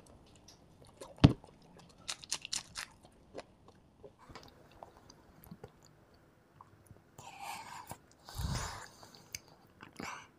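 Close-miked chewing and crunching of small crispy food crumbs: sparse crisp crunches and mouth clicks, most of them in the first three seconds, with two longer, louder mouth sounds near the end.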